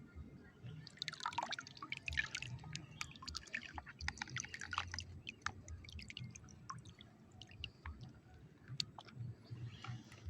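Small splashes and drips of water in short irregular bursts, with many sharp ticks, busiest in the first half and thinning out later.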